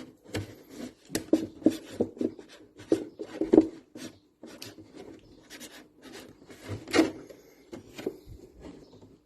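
A pen writing on a cardboard milk carton: short, irregular scratchy strokes, with one sharper knock about seven seconds in.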